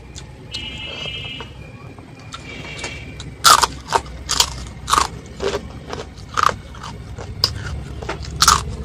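Crunching bites and chewing of crisp fried food, loud crunches about twice a second starting about three and a half seconds in, over a steady low rumble.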